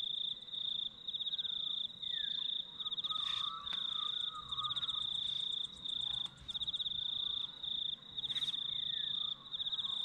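A cricket chirping: a high, steady trill in bursts of about a second, broken by short gaps, with a couple of faint taps behind it.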